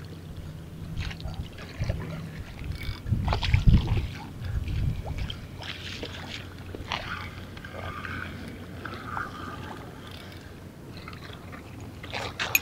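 Wind gusting on the microphone, loudest a few seconds in, over water sloshing against the pier, with scattered small splashes and crackles.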